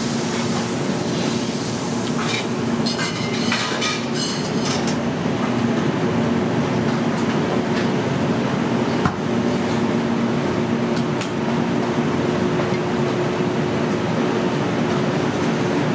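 Steady commercial-kitchen ventilation noise: a constant hum and hiss with a low droning tone, broken by a few light clicks and one sharper click about nine seconds in.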